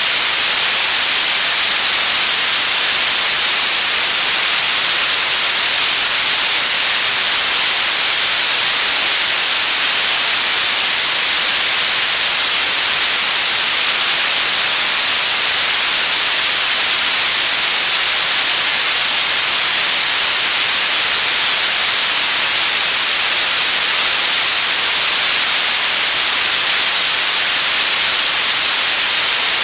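Television static: a steady, loud hiss of white noise, bright and high-pitched, unchanging throughout.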